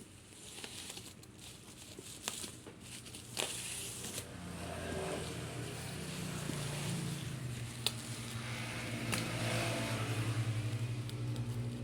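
Light clicks and crinkling of packaging being handled, then a low, steady hum that builds from about four seconds in and grows louder toward the end.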